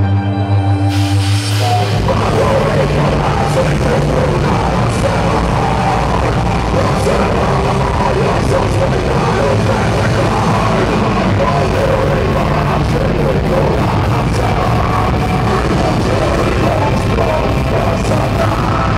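Heavy metal band playing live: distorted electric guitars, bass and drums, with a singer shouting the vocals. The full band comes in with cymbal crashes about a second in, after a held chord.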